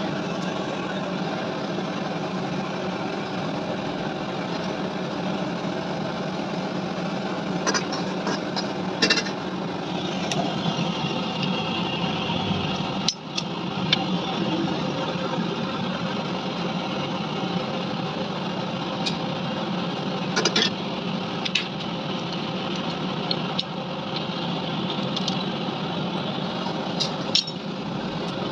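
A machine running with a steady hum, with a few sharp clinks and knocks over it at irregular moments.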